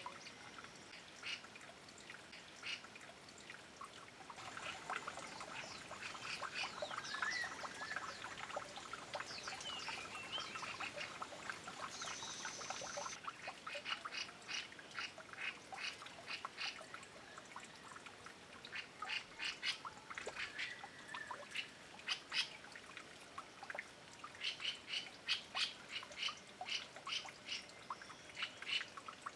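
Taiwan scimitar babblers calling: repeated rapid runs of short, harsh notes, over the light steady trickle of a stream.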